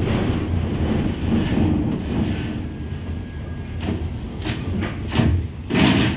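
Interior running noise of a V3A-93-M tram: a steady low hum with wheel-and-rail rumble. In the second half comes a run of sharp clunks from the track, the last near the end the loudest.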